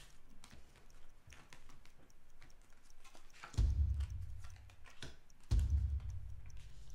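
A deck of cards being shuffled and handled on a table: a run of light clicks and snaps. Twice in the second half a deep bass pulse from the film's score swells up and is the loudest sound.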